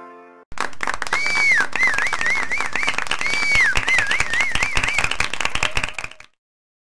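Rapid clapping or clicking with a high whistle over it. The whistle holds a note that falls away, then runs through a quick wavering figure, and the phrase comes twice. Everything stops abruptly near the end.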